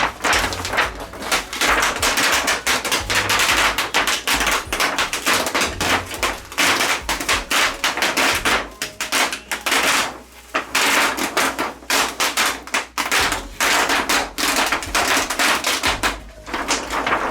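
Dense, rapid crackling and rustling of the TV's thin white reflector sheet being handled and peeled away from the backlight panel, with a few short pauses.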